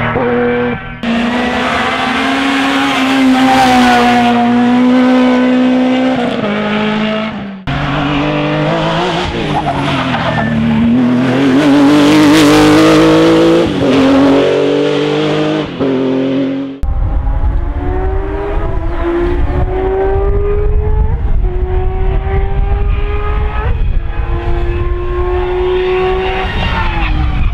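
Rally car engines at full throttle on a special stage, revving up through the gears with clear upshifts, along with some tyre squeal. The sound cuts abruptly between different cars several times.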